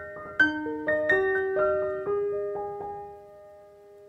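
Background piano music, single notes struck one after another and dying away, the phrase fading out near the end.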